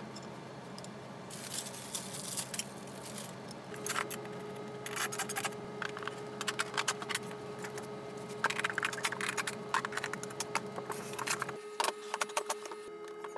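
Wooden cabinet panels and mounting hardware being handled during assembly, played back sped up: rapid, irregular clatters, knocks and scrapes.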